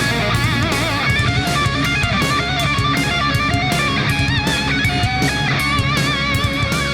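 Background rock music with electric guitar, bass and a steady beat.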